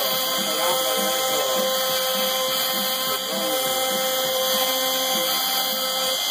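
CNC router spindle running with a 2 mm spiral end mill cutting through 3 mm MDF. A whine glides up and down in pitch as the machine follows the cut, and a steady tone drops out about five seconds in.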